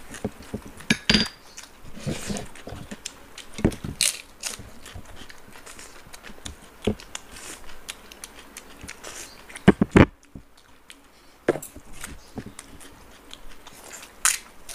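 Close-miked eating sounds of two people eating sweets and curd by hand: irregular wet lip smacks and chewing. There are a few sharper clicks, the loudest a close pair about ten seconds in.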